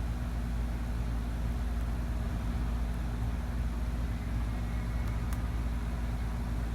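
A steady low mechanical hum with a faint haze of noise above it, unchanging throughout, and one faint click about five seconds in.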